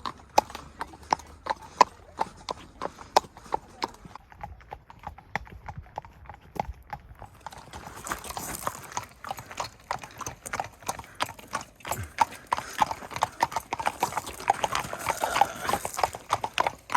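Horses' hooves clip-clopping at a steady walk, a regular run of sharp hoof strikes that gets louder and busier about halfway through.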